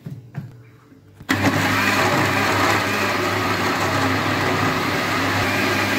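Sonai countertop blender switched on about a second in, its motor running steadily as it blends eggs and flour into a batter.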